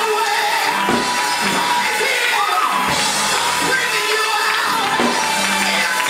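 Live gospel praise music: a woman's amplified voice singing over organ and drums.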